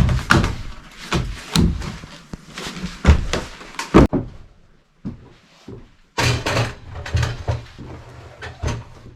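Wooden lumber boards being handled and shifted, knocking and clattering against each other and the bench in a string of sharp knocks, with a brief harsher burst of noise about six seconds in.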